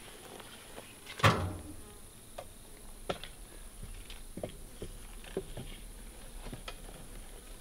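Honeybees buzzing around disturbed hives. A thump comes about a second in, followed by scattered knocks and clicks as the wooden hive boxes are handled.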